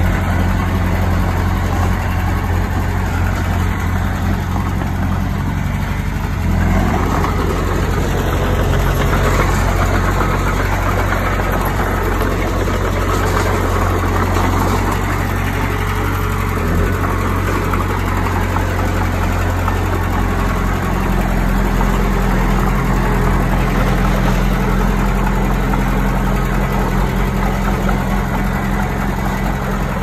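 Diesel engine of heavy earthmoving equipment running steadily, with its note shifting about seven seconds in and again about twenty seconds in.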